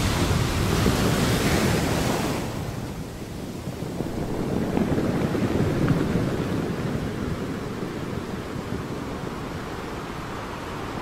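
Ocean surf washing up a sandy beach, a steady rush of waves with one swell growing louder about five seconds in and then easing off.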